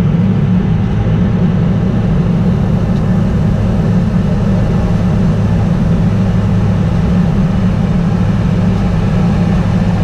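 Steady, loud low rush of airflow and engine noise from an aircraft descending through cloud on approach, heard from a camera mounted on its nose.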